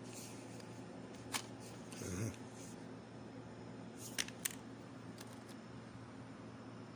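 Small laptop parts being handled as the old hard drive is taken out: a sharp click about a second in, a short low scuff at about two seconds, and two quick clicks a little after four seconds, over a faint steady hum.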